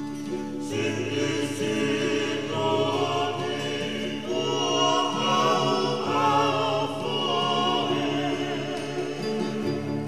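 Tongan kava-club song: a vocal group singing in harmonised parts (lead, tenor and bass) over a steady accompaniment. The voices come in fuller about a second in.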